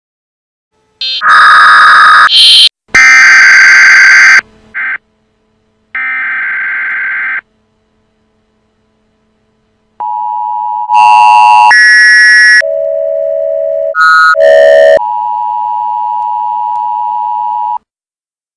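Emergency Alert System alert tones, chopped up and pitch-shifted: loud electronic tone bursts at changing pitches, some harsh and buzzy, broken by gaps of silence. It ends with a steady alert tone lasting about three seconds.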